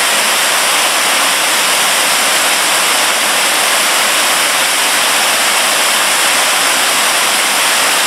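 Bigăr waterfall: water pouring in many thin streams over a moss-covered rock dome, a steady, even rush of falling water.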